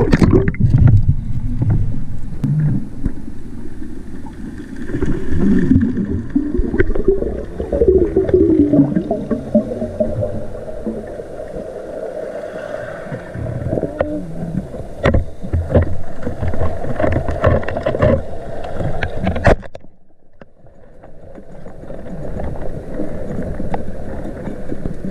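Underwater sound picked up by a diver's action camera: water rushing and gurgling around the housing, with scattered sharp clicks and knocks. Just before twenty seconds in it drops suddenly to a quieter hush, then slowly builds again.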